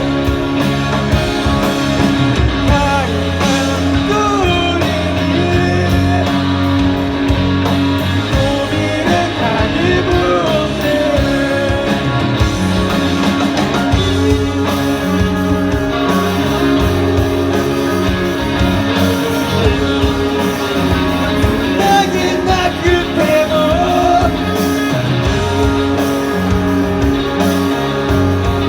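Rock band music: drums, bass and guitars playing steadily and loudly, with a bending lead melody line over them.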